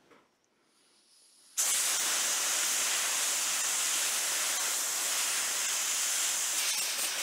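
Near silence, then about a second and a half in a steady hiss starts abruptly and holds on at an even level.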